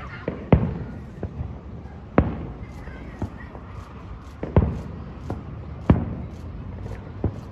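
Aerial firework shells bursting: four loud booms one to two seconds apart, each with a short rumbling tail, among fainter pops.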